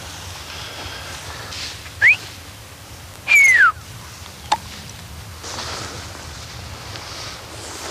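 A person whistling twice and loudly: a short rising whistle about two seconds in, then a longer falling whistle a second later. A brief sharp click follows.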